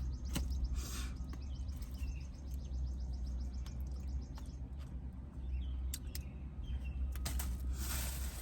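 Small birds chirping faintly over a steady low hum, with a few clicks and a brief rustle near the end.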